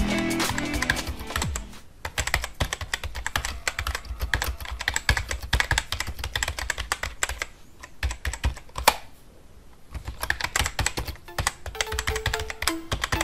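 Rapid computer-keyboard typing clicks, a typing sound effect. Music fades out over the first two seconds and comes back near the end.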